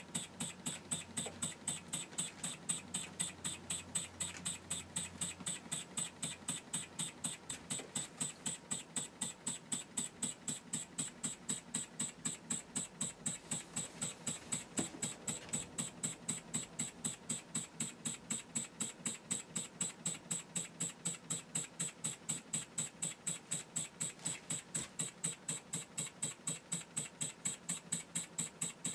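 Stretched Wig-Wag model horizontal mill engine running on compressed air, giving a fast, even beat of sharp exhaust puffs and clicks, several a second, with each stroke.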